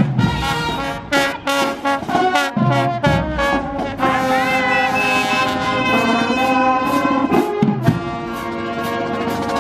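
Brass band playing, with trombones and trumpets over a steady beat and some sliding notes.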